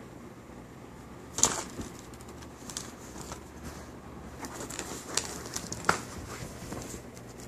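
Rustles and light taps as a long-haired cat paws and bats at loose cards and a cable on a fabric surface, mixed with the rubbing of the phone being handled close to it. The sharpest tap comes about a second and a half in, with a few more scattered through.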